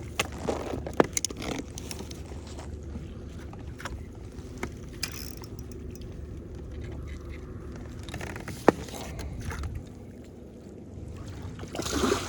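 Knocks and clicks on a kayak over a low steady rumble of water. There is a cluster of knocks in the first couple of seconds, a single sharp click about nine seconds in, and a brief rush of splashing or water noise near the end.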